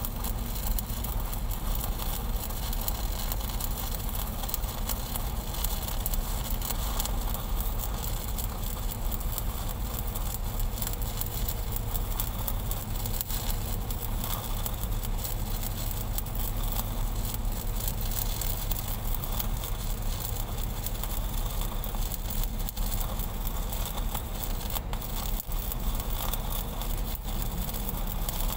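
Stick-welding (SMAW) arc crackling steadily as an electrode burns along a joint on large-diameter steel pipe, with a low steady hum underneath.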